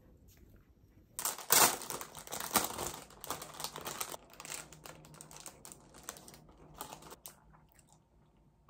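Crinkling of a clear plastic snack bag being handled by hand. It starts about a second in, is loudest early on, and thins out near the end.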